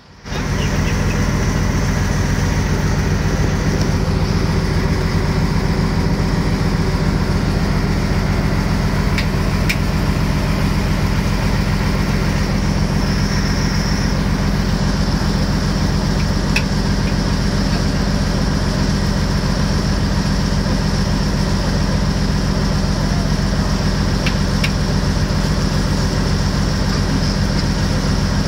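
A boat's engine running steadily with an even low drone, heard from on board while the boat is under way.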